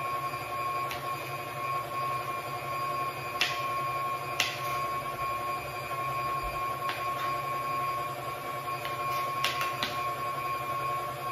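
Kitchen knife cutting through green beans onto a cutting board: about six short, sharp taps, spaced unevenly, over a steady background hum.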